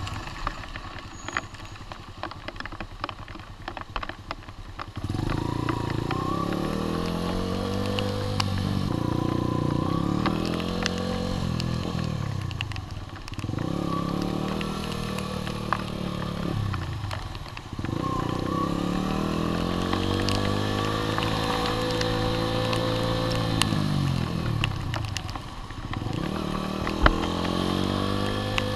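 Sinnis Apache 125's single-cylinder engine under way, heard from on the bike. It runs quietly for about the first five seconds, then its note rises and falls about five times as it accelerates and eases off.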